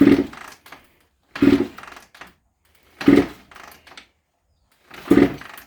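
Honda CR85R two-stroke single being kick-started: four kicks, about one every second and a half, each a clunk of the kickstarter and a brief spin of the engine over compression that dies away without firing.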